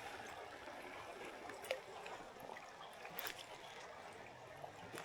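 Faint running water of a shallow creek, with a few light clicks.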